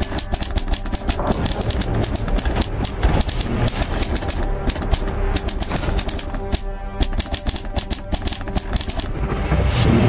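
Rapid, irregular typewriter-style key clicks, a typing sound effect, laid over background music with a steady bass. The clicks stop about nine seconds in, and the music swells near the end.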